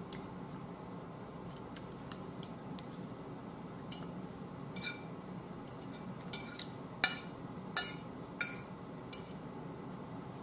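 Metal fork clinking and scraping against a plate as corn is scooped up: about ten light, sharp clicks, most of them bunched in the second half.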